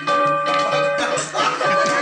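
Music for a group dance, with long held ringing notes and light taps; people's voices chatter over it from about a second in.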